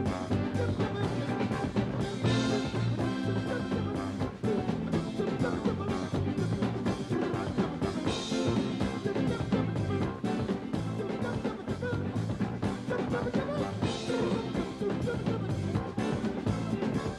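Soul music from a live band: a brass section and drum kit over a steady dance beat.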